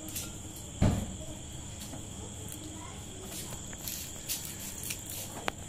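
Crickets chirping steadily in the background, with a single dull thump about a second in.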